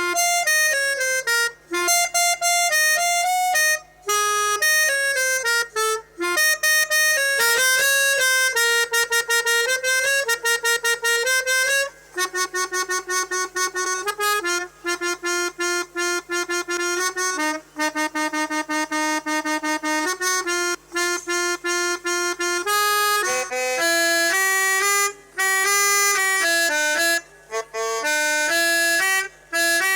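Pianika (melodica) playing a telolet basuri tune, the melody of an Indonesian bus horn: a run of held notes changing pitch, broken by short pauses every few seconds.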